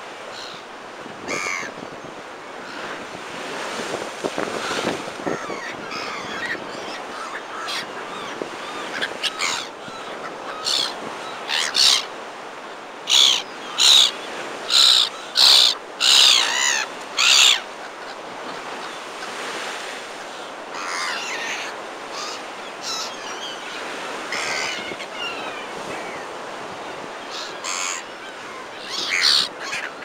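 Gulls calling, black-headed gulls among them, with scattered cries and a quick run of loud calls about halfway through, over the steady wash of breaking surf.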